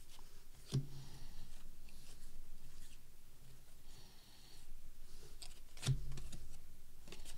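Trading cards sliding and rubbing against each other as they are flipped off a stack by hand, a dry papery scrape, with two soft knocks, one about a second in and one near the end.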